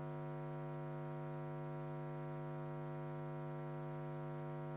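Steady electrical mains hum with a buzzy edge, unchanging in level.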